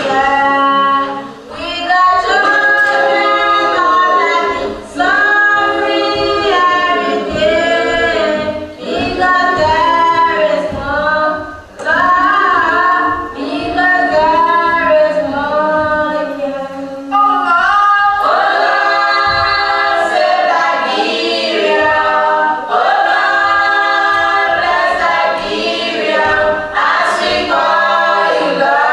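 A group of voices singing together, choir-style and a cappella.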